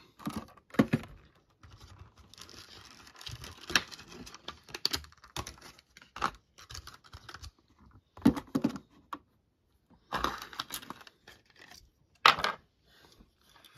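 A plastic blister pack on a card backing being torn and pried open by hand: irregular crinkling, tearing and sharp plastic clicks in short bursts with brief pauses. The loudest click comes about twelve seconds in.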